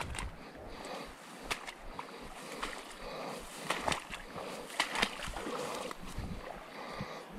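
Irregular small splashes and swishes in shallow river water, a dozen or so short sharp sounds at uneven intervals over a faint steady rush of moving water.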